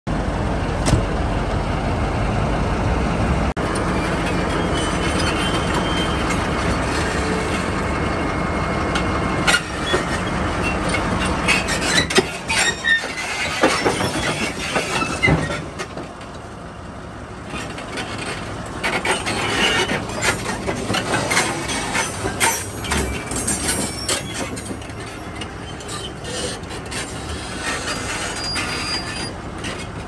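Cat D11R crawler bulldozer's diesel engine running with its steel tracks clanking and squealing. A heavy steady rumble fills the first third, sharp metal clanks and squeals come in after it, and the level drops about halfway through, leaving scattered clanks over the engine.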